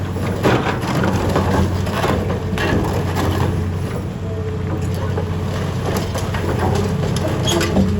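Concrete crunching and cracking as an excavator crushes it, with irregular sharp cracks, a loud one about half a second in and another near the end. The excavator's diesel engine runs steadily underneath.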